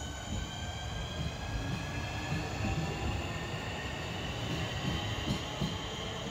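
Southeastern Class 465 Networker electric multiple unit running past at a platform. Its traction motors give a whine of several parallel tones that climbs slowly in pitch as the train gathers speed, over the low rumble and knocking of wheels on the track.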